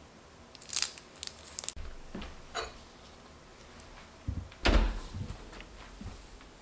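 Kitchen handling sounds: a few light clicks and taps in the first two seconds or so. About four and a half seconds in comes a louder clunk with a short rattle, which fits a wall oven's door being pulled open, and a couple of small knocks follow.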